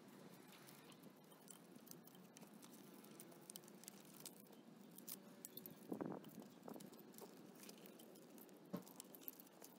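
Faint rustling and small clicks of a fabric strap being worked by hand around a motorcycle frame, with a louder thump about six seconds in and a sharp click near the end.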